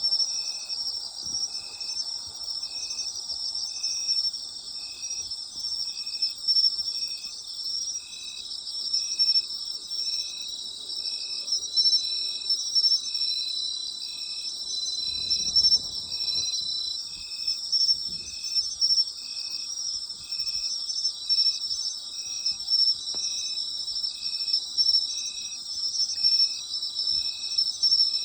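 Autumn night insects calling together: a steady high trill from several insects, with one chirping in an even rhythm, about three chirps every two seconds.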